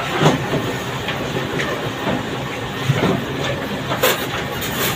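Steady machine noise of running workshop machinery, with a few light knocks and scrapes as damp molding sand is packed by hand into a casting mold.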